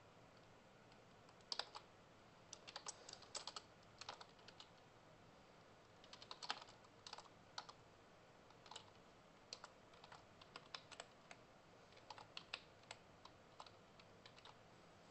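Quiet typing on a computer keyboard: short clusters of keystrokes with pauses of about a second between them.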